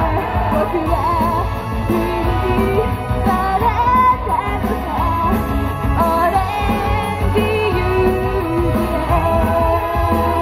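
A girl idol group singing a J-pop song together through handheld microphones over loud amplified backing music with a steady beat, played through PA speakers.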